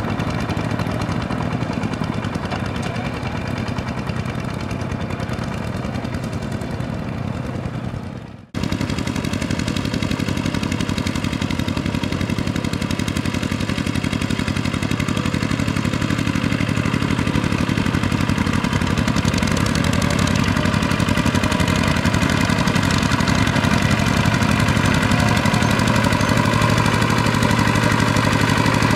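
Single-cylinder diesel engine of a Kubota two-wheel walking tractor running steadily as it works through a muddy paddy field. The sound breaks off for a moment about eight seconds in, then carries on.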